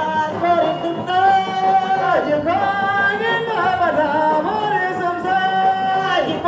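A single voice singing long held notes, each sliding down in pitch at its end.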